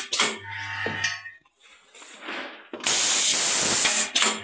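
Pneumatic automatic button-attaching machine cycling: a loud hiss of compressed air lasting just over a second near the end. A brief low buzz and a few clicks come about half a second in.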